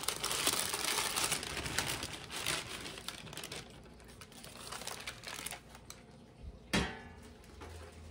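Parchment paper crinkling and rustling as roasted squash and sweet potato cubes are tipped off it into a bowl, dying down after about three seconds. A single sharp knock comes near the end.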